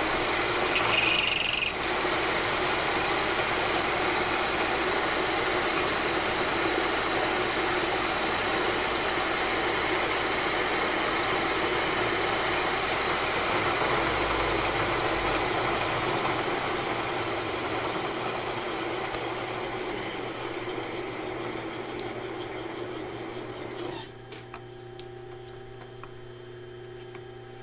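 Milling machine cutting off the ends of a metal part: a steady, loud rushing noise that eases over the last few seconds and stops suddenly about 24 seconds in, leaving the machine's steady hum.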